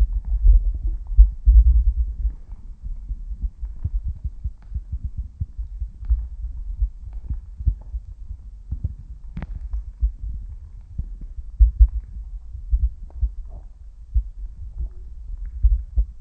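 Underwater noise heard through a submerged camera's housing: a muffled low rumble with irregular soft thumps, and a few faint clicks, one sharper about nine seconds in.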